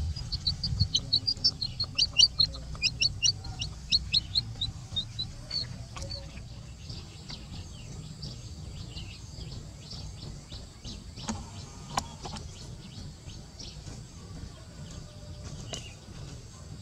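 Baby chick peeping in a rapid, high-pitched series that fades out about five seconds in, followed by fainter scattered chirps over a low outdoor rumble.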